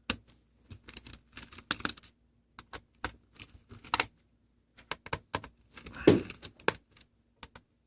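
Irregular plastic clicks and taps from a Lenovo P50 laptop being handled as its battery is unlatched and taken out, with one louder knock about six seconds in.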